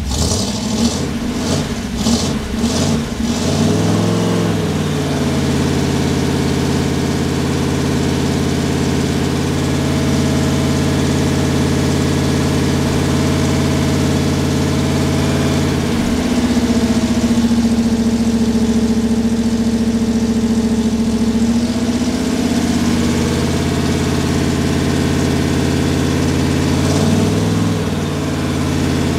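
Newly installed engine in a Zephyr race car firing unevenly for a few seconds, then catching and revving up to a steady idle. About halfway through it is held at a higher speed for several seconds, then drops back to idle, with another short rev near the end.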